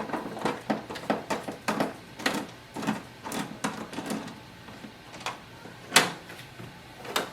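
Phillips screwdriver backing screws out of the printer's plastic housing: a run of irregular small clicks and ticks, with a sharper click about six seconds in.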